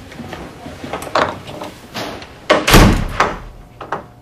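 A door slamming shut about two and a half seconds in, one loud bang with a low thud, after a lighter knock about a second in.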